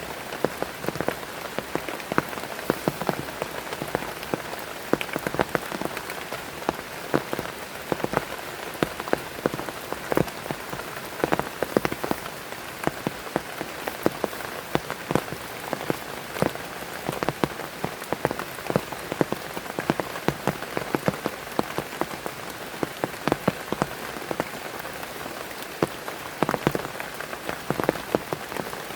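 Heavy rain falling steadily, with a constant hiss and many sharp, irregular splats of large drops striking close by.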